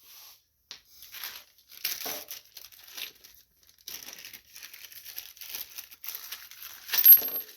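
Irregular scraping, rustling and light knocks of hands working with tools and parts on the mower's steering, with a louder clatter about seven seconds in.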